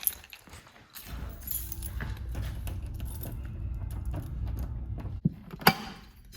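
A ring of keys jangling over a steady low rumble, with two sharp clicks near the end.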